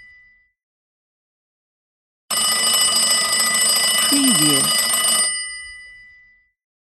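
Old telephone's bells ringing: one ring of about three seconds starting a little over two seconds in, the bells sounding on for a moment as it fades out.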